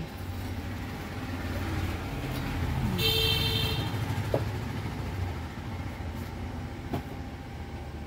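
Low motor rumble that swells toward the middle and then fades, with a short high-pitched tone about three seconds in and a couple of faint clicks.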